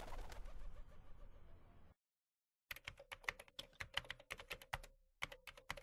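Faint computer-keyboard typing: irregular sharp key clicks, several a second, starting about three seconds in after a moment of dead silence. Before that, a faint fading hiss.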